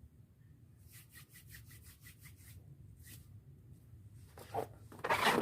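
A rubber balloon being rubbed with the fingers: a quick run of faint squeaks, about six a second, then a much louder rubbing squeak starts just before the end.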